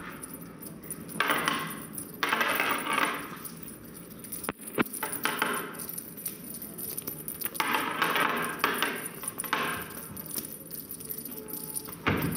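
Feather wand cat toy swished and dragged over a wooden tabletop, making several irregular bursts of rustling and scraping, with a few sharp clicks midway and a knock near the end.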